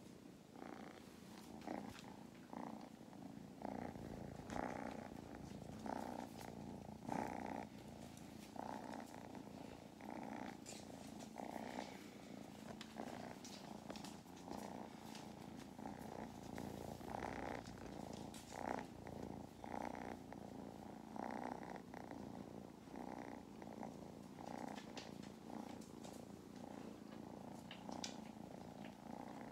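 Kittens purring powerfully close to the microphone, a continuous rumbling purr that swells and eases unevenly.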